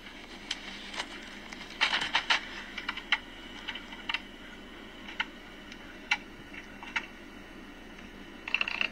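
A VCR's tape mechanism clicking and ticking as a VHS tape is loaded and starts to play: scattered sharp clicks, a small cluster about two seconds in and a quick run of clicks near the end, over a faint steady hum.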